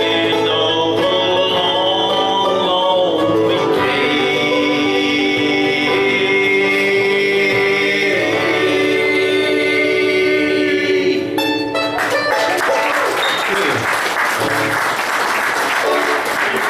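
The closing bars of a country song: singing over acoustic guitar and banjo, ending on a long held note and a last strum about eleven seconds in. Audience applause follows to the end.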